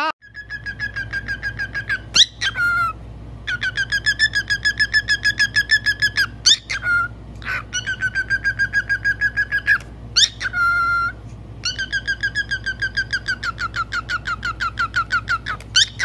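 Cockatiel whistling: long runs of a fast pulsing trill on one pitch, about five notes a second, broken every few seconds by short upward-swooping whistles, over a low steady hum.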